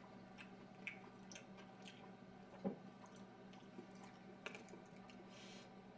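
Near silence over a steady low hum, with a few faint clicks and taps of chopsticks against dishes and quiet eating sounds.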